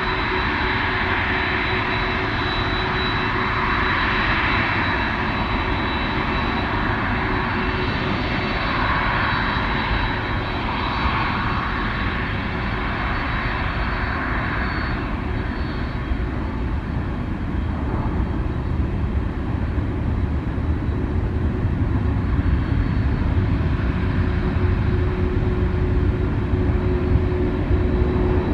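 Airliner engines heard close by: a steady whine with a rushing hiss that eases about halfway, while a deep rumble builds toward the end.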